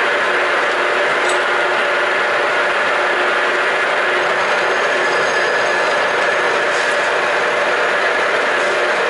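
Metalworking machine tool running steadily under power, its gear drive whirring with a constant mechanical hum.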